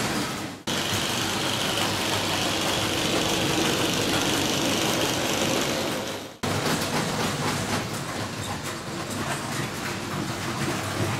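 Steady running noise of model trains on an exhibition layout, blended with the hubbub of the hall. The sound dips and comes back abruptly twice, under a second in and about six seconds in.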